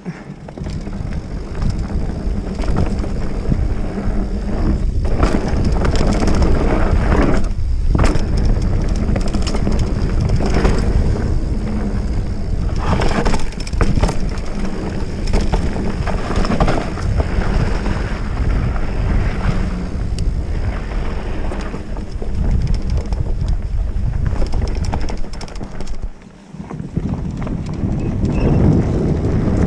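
Wind buffeting an action camera's microphone during a mountain bike ride on a dirt trail, with tyre rumble and knocks and rattles from the bike over bumps. It dips briefly near the end.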